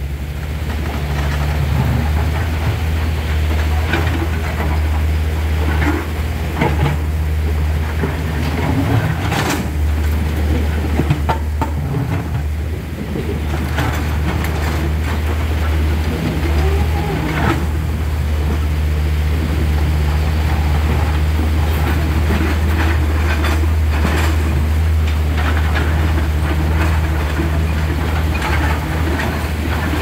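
Diesel engines of two hydraulic excavators, a Tata Hitachi and a Komatsu, running steadily under load with a low drone, over rushing river water. Scattered knocks and scrapes come through as the steel buckets work against boulders.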